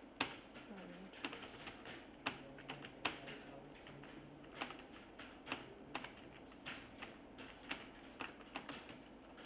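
Typing on a computer keyboard: irregular keystrokes, a few to several a second, with short pauses between bursts.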